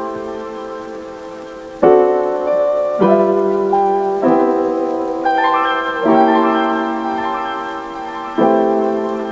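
Background piano music: slow chords, each struck and left to fade, a new one every second or two.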